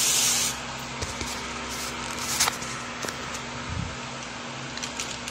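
Seasoned vegetable and salmon pieces being picked by hand off an aluminium foil tray and set into an air fryer basket: scattered light clicks and rustles, with a short hiss right at the start.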